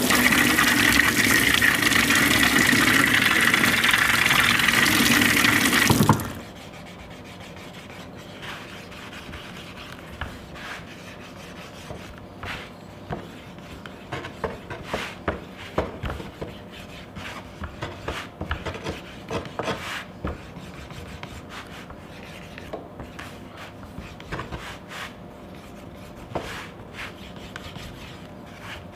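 A tap runs into a steel sink for about six seconds and then shuts off. After that comes a long run of short, irregular rubbing strokes as the wetted edge of a leather disc is burnished with a hand tool.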